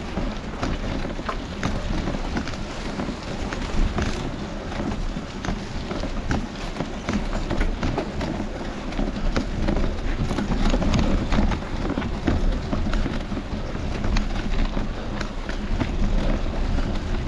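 Mountain bikes climbing a dirt trail covered in dry leaves, heard from a camera on one of the bikes: a steady rumble of tyres and rattling with many small clicks and knocks.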